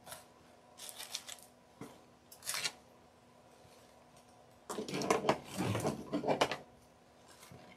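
Rustling and handling noises from paper coffee filters and lace being pressed and arranged, in a few short bouts, the longest and loudest about five seconds in as a hot glue gun is picked up from the table. A faint steady hum runs underneath.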